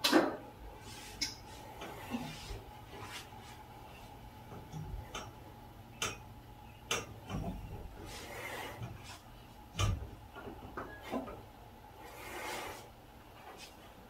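Back walking: bare feet pressing and shifting on a towel-covered back, a soft rubbing of skin on cloth, broken by about ten scattered sharp clicks and pops, the loudest right at the start. The pops are the back's joints cracking under the weight of the feet.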